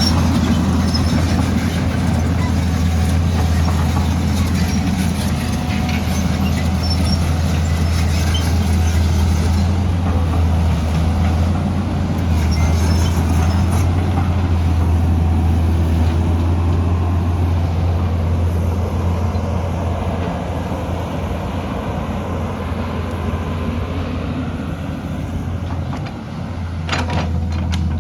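Excavator's diesel engine running steadily under work, with a constant low hum. A few sharp knocks come near the end.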